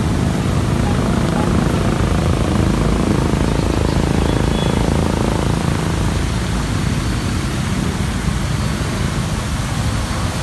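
Water jets of a large dancing fountain spraying and splashing: a steady rushing noise with a low, rough rumble underneath.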